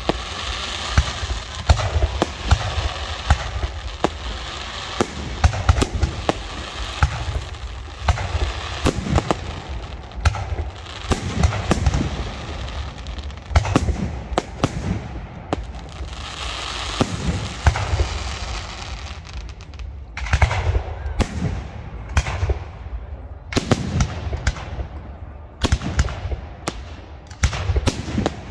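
Aerial firework shells bursting in rapid succession, with stretches of dense crackling. In the last third the bangs come more separately, each trailing off in an echo.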